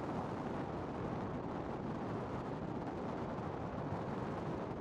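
Desert wind on the microphone: a steady, low rush of noise with no distinct events.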